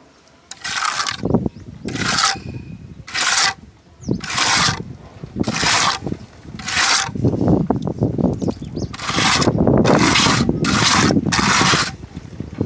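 Steel trowel scraping across a textured exterior wall coating in repeated strokes, about one a second, each a short rasping hiss.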